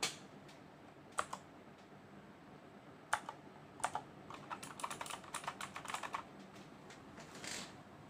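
Mechanical keyboard with Outemu blue clicky switches being typed on: a few separate keystrokes, then a quick run of clicking keystrokes lasting about two seconds. A short brushing noise follows near the end.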